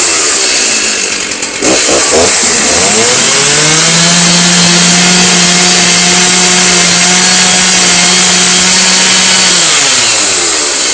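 Gas chainsaw engine running, revving up about two and a half seconds in and held at a steady high speed for around seven seconds, then dropping back near the end.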